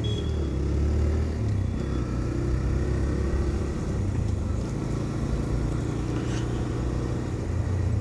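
TVS Raider 125's single-cylinder engine running steadily as the motorcycle rides along, mixed with a rumble of wind on the microphone.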